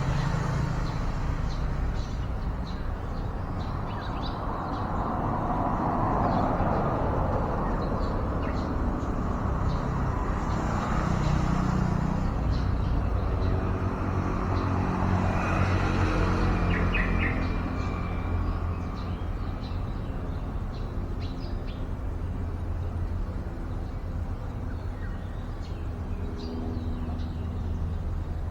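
Steady rumble of road traffic that swells as vehicles pass, with scattered short bird chirps and a quick run of chirps partway through.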